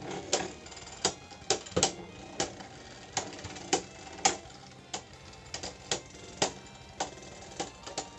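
Two spinning Beyblade tops, Wizard Fafnir and Slash Valkyrie, knocking against each other in battle: sharp, irregular clacks, about two a second.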